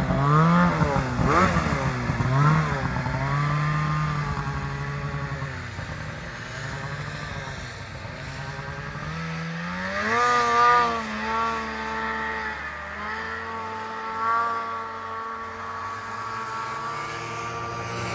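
Snowmobile engine running with the throttle worked up and down: its pitch swings in quick rises and falls at first, rises again about ten seconds in, and climbs slowly near the end.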